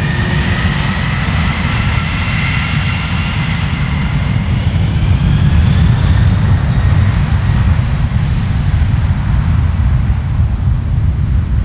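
Boeing 747 freighter's four jet engines during takeoff: a loud, deep, continuous rumble, with a whine from the engines rising in pitch over the first several seconds.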